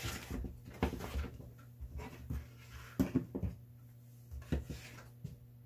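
Athletic shoes being handled and set down on a wooden workbench: a string of soft, irregular knocks and rustles, the sharpest about three seconds in, over a low steady hum.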